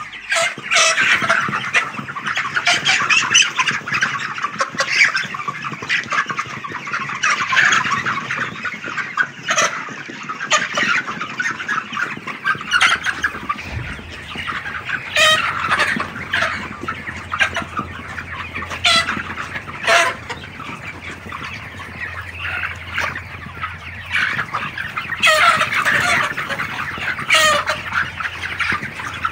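A large flock of white chickens clucking and calling over one another without a break, with louder single squawks standing out now and then.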